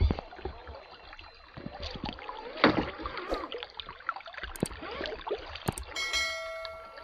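Water gurgling and splashing, with scattered small knocks throughout. A short ringing tone sounds about six seconds in and fades out.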